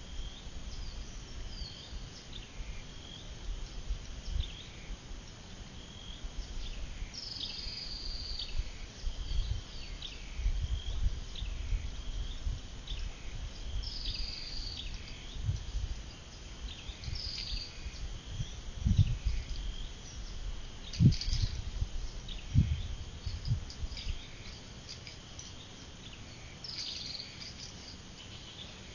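Swamp-side ambience: a steady high insect chorus, with short high bird calls that come again every few seconds. Low rumbling thumps come and go, the loudest a little past the middle.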